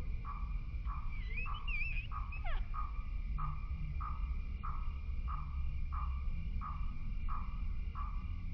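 An animal calling over and over in an even rhythm, about one and a half calls a second, with a steady high hum behind it and a brief warbling chirp about a second in.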